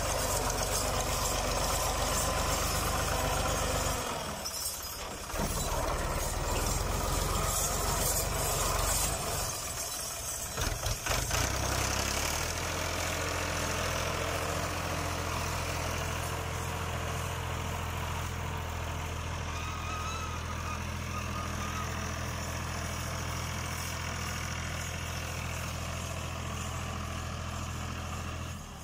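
NH Ghazi (Fiat 480) 55 hp tractor's diesel engine running steadily under load while pulling a tine cultivator through the field. The sound dips briefly about four seconds in and again around ten seconds.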